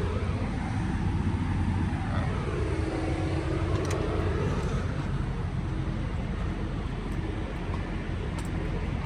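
Diesel engine running steadily at idle, a low even hum with a faint tone that swells and fades around the middle.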